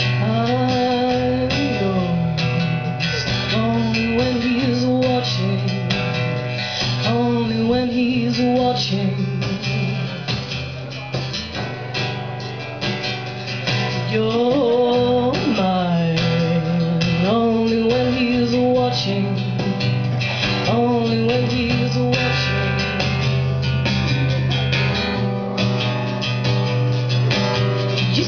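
A woman singing a song while playing an acoustic guitar, a live solo performance through a PA.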